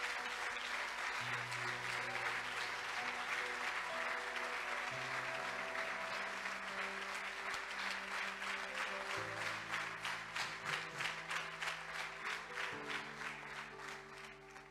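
Congregation applauding. In the second half the applause turns into steady rhythmic clapping, about three claps a second, and fades near the end. Slow sustained keyboard chords play underneath.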